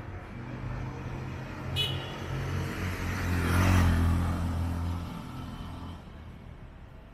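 A motor vehicle passing close by on a street. Its engine hum builds, is loudest about three and a half seconds in, and fades by about six seconds. A brief high squeak comes about two seconds in.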